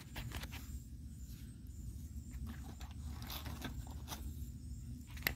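Faint light scraping and clicking of handling over a steady low outdoor rumble, with one sharper click near the end.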